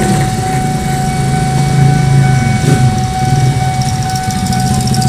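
Diesel locomotive's horn held in one long steady tone over the low rumble of the engine, with a fast rhythmic clatter starting near the end.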